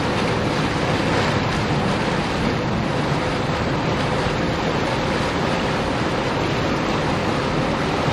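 Steady rushing of churned water in the stern wake and propeller wash of a 1999 Carver 504 motor yacht under way, with its engines running underneath.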